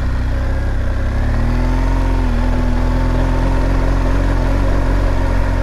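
Motorcycle engine running under way, its pitch rising about a second in as it picks up, then holding steady.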